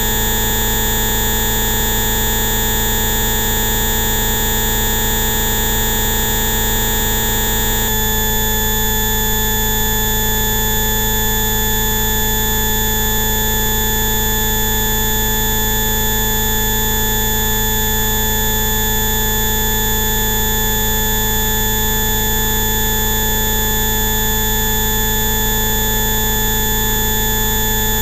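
Synthesized frequency-therapy tones: a dense stack of steady electronic tones, low and high together, that switches abruptly to a different set of tones about eight seconds in.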